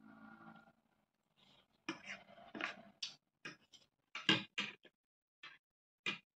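Background music dies away in the first second. Then a run of short, irregular clicks and scrapes follows: close-miked eating with a fork and spoon from a plate.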